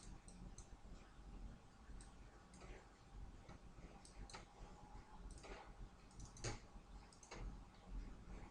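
Faint, irregular clicks of a computer mouse, a dozen or so spread unevenly, over a low steady hum.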